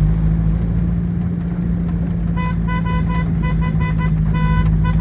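Car engine and road noise inside the moving car, a steady low drone. About halfway in, a rapid run of short, even beeps starts and keeps going.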